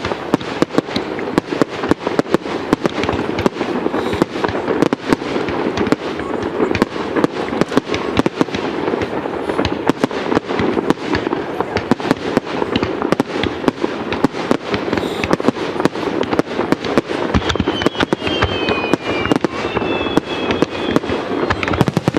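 Fireworks display going off in a dense barrage: continuous crackling with many sharp bangs, and a few high whistling tones near the end.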